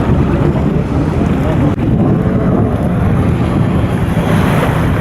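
Jet ski engines running on the water, heard through steady wind buffeting the microphone.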